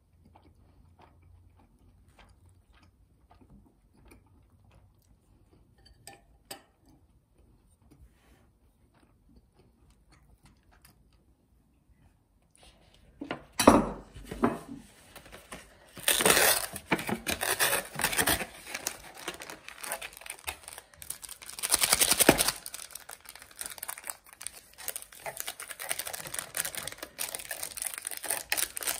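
Faint scattered clicks for the first half, then loud, irregular crinkling and rustling from a bit under halfway, with a few sharp surges like crumpling or tearing of a crinkly wrapper or paper.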